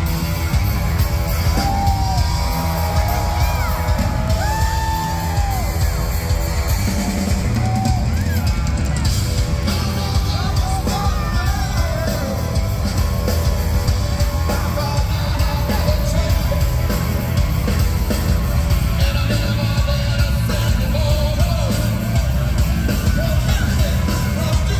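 Live rock band playing loud: sung and shouted vocals over electric guitar, bass guitar and a pounding drum kit, heard from within the audience.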